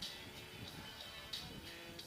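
Faint music with a steady beat of cymbal-like ticks over held tones, in an instrumental stretch between sung lines.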